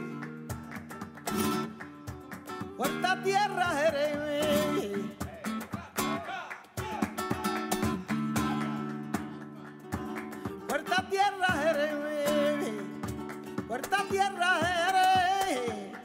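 Live flamenco: a woman's cante, sung in three long wavering, ornamented phrases, over a flamenco guitar and sharp hand clapping (palmas).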